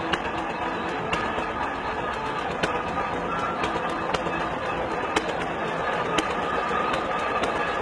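International Harvester Titan 10-20 tractor's two-cylinder engine running as the tractor drives slowly along, a steady rough mechanical din with sharp clicks about once a second.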